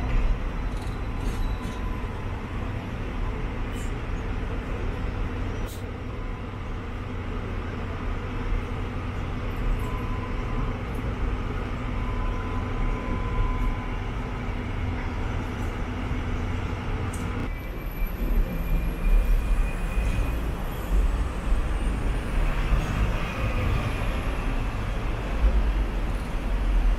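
Hong Kong double-decker tram heard from on board while running along its tracks: a steady low rumble with a faint motor hum. About two-thirds in the sound changes and a higher whine comes in, rising slightly in pitch.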